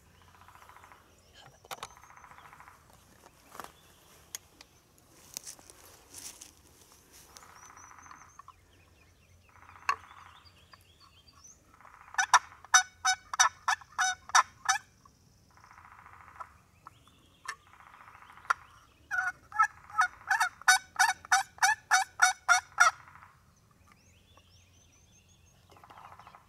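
Two runs of loud, rapid turkey yelps from a hand-worked friction turkey call, about five or six notes a second, each run lasting three to four seconds. Fainter, short rattling bursts come now and then between the runs.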